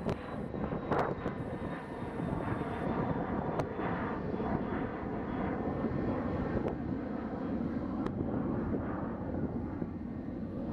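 Airbus A320 jet engines running at low taxi thrust as the airliner rolls past: a steady rumble with a faint high whine.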